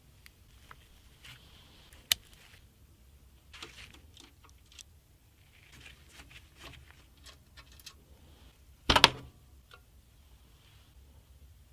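Small clicks, taps and rustles of PC case fans being handled and fitted into a case. There is a sharp single click about two seconds in and a louder clack of hard plastic or metal near nine seconds in.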